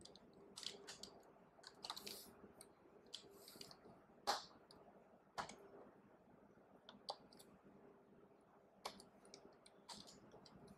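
Faint, irregular clicking of computer keyboard keys being typed, in short runs with pauses between them, one keystroke louder about four seconds in.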